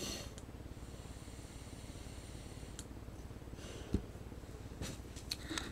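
Quiet room tone with a low steady hum, a few faint clicks, and a dull thump about four seconds in.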